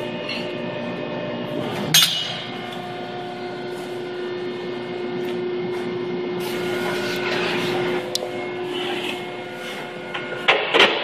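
Hydraulic pump and motor of a 1995 Niagara 350-ton press brake running with a steady hum. A sharp metal clank comes about two seconds in, and two or three more clanks come near the end as sheet steel is handled at the brake.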